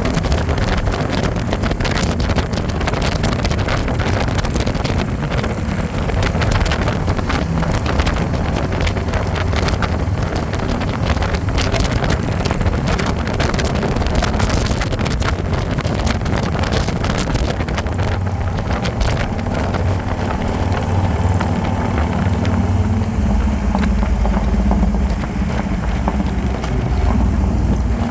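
Harley-Davidson motorcycle engine running on the road, with wind buffeting the microphone; the engine note settles into a steadier low tone in the last few seconds.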